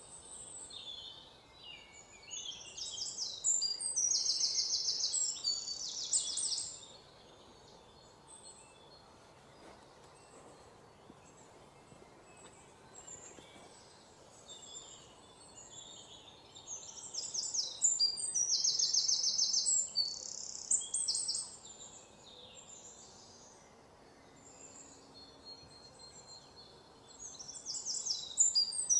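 Birds chirping in bouts of rapid, high trills: one from about two to seven seconds in, another around seventeen to twenty-two seconds, and a third near the end.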